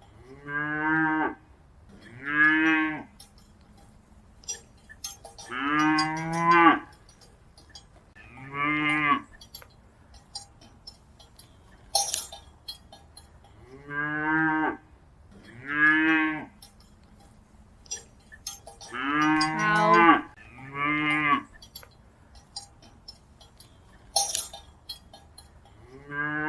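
Cattle mooing over and over: about nine short moos, a few seconds apart at most, two of them longer and louder. Light clinks are scattered between the calls.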